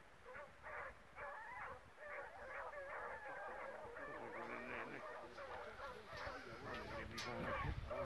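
A distant pack of hunting hounds in cry, many voices baying and overlapping, growing louder and denser from about two seconds in.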